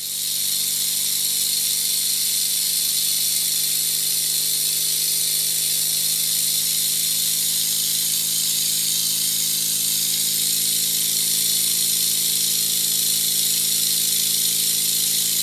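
Stuart No. 10V model steam engine running at very high speed on compressed air at about 60 psi: a steady, even buzz from its rapid exhaust beats under a strong hiss of escaping air.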